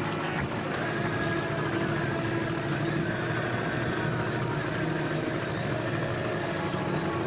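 A boat engine running steadily at an even pitch.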